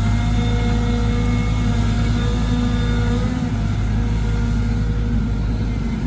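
Caterpillar 313GC excavator's diesel engine running steadily, with a few thin whining tones over the low engine sound.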